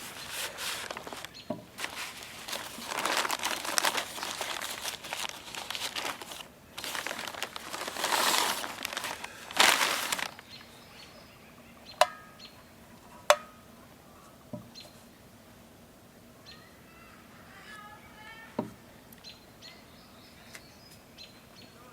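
Loud rustling noise that comes in waves for about ten seconds and stops, then two sharp clicks and small birds chirping faintly.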